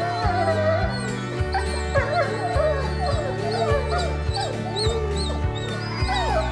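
Several grey wolves howling, with short yips and whines, their wavering calls overlapping. Under them runs background music with a steady beat.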